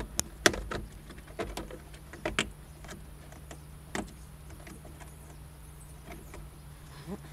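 Plastic engine-bay trim on a BMW E36 being unclipped and handled: a series of sharp clicks and knocks, most of them in the first two and a half seconds, with a last one about four seconds in.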